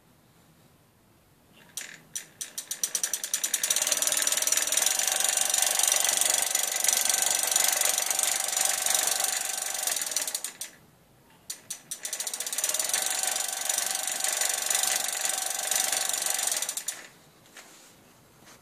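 Bafang BBS01 mid-drive e-bike motor spun up twice. Each time separate clicks quickly speed up into a fast, steady clicking with a faint whine, run several seconds, then stop. The clicking is an unwanted noise from the drive.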